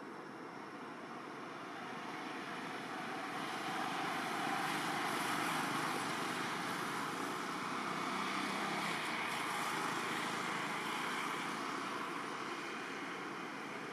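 Distant vehicle noise: a steady rushing sound that swells over the first few seconds and then holds.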